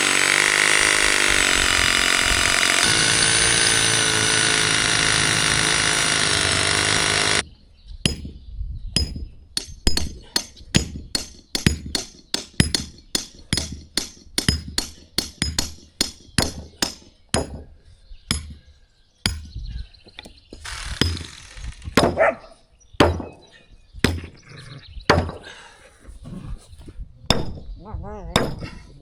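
Background music for the first seven seconds or so, cutting off abruptly. Then a hammer pounds stakes into hard ground, about two sharp blows a second with short pauses.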